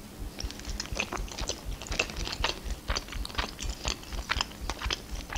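Close-miked chewing of a boiled pelmeni dumpling in a person's mouth: many short clicks and smacks, several a second.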